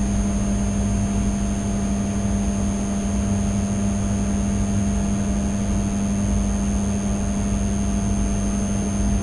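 Steady low hum with a rumbling background noise underneath and faint high steady whines, unchanging throughout, with no speech.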